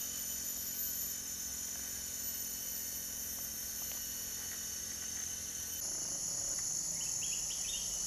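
Steady high-pitched chorus of forest insects, with a few short chirps about seven seconds in.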